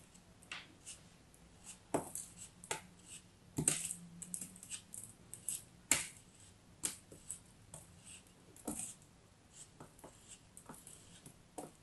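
Craft-knife blade cutting and scraping through a molded sand shape, heard as a quiet run of short, irregular scrapes and ticks as the sand crumbles away.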